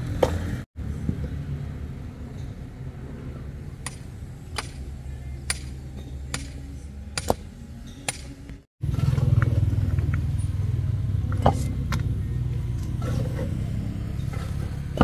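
A motor running with a steady low hum. It drops out abruptly twice, briefly. Several sharp clicks fall in the middle, and the hum is louder after the second dropout.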